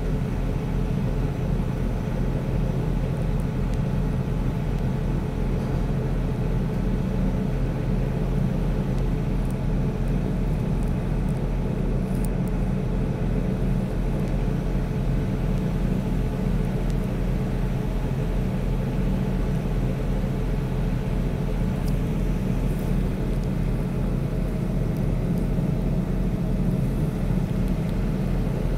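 Boat engine running steadily under way, heard from on board as an even low drone.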